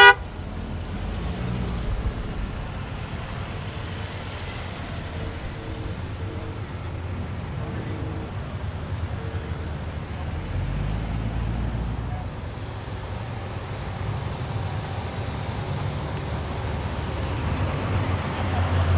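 Parade cars driving slowly past one after another, a steady low run of engines and tyres, with a few faint short horn toots in the distance. Near the end a deeper engine rumble grows louder as a black Chevrolet Camaro approaches.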